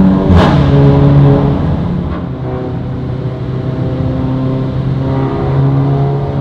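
VW Golf 8 GTI's turbocharged 2.0-litre four-cylinder running loud through an Armytrix 200-cell sport-cat turbo-back valvetronic exhaust as the car drives by. About half a second in there is a sharp crack and the engine note steps down, then holds steady, swelling again near the end.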